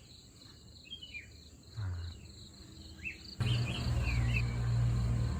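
Crickets trilling in a steady, evenly pulsed chirp, with a few short, sliding bird chirps over it. About three and a half seconds in, a loud, steady low rumble starts suddenly and stays.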